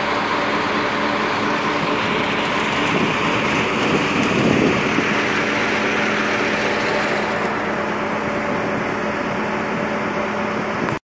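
Engine and machinery of a reed-harvesting boat running steadily with a low, even hum. About four seconds in the sound grows briefly louder and rougher.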